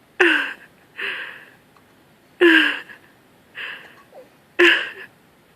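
Young infant hiccuping: three sharp hiccups about two seconds apart, each with a short squeak that drops in pitch, and softer breathy sounds between them. The baby has had a prolonged bout of hiccups.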